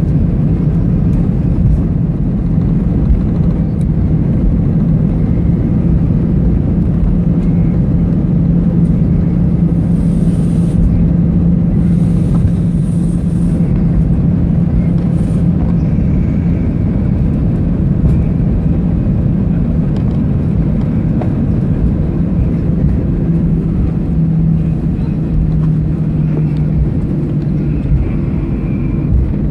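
Airbus A319 cabin noise: a steady engine hum over a deep rumble, the hum dropping slightly in pitch about two thirds of the way through, as the airliner moves on the ground shortly after landing.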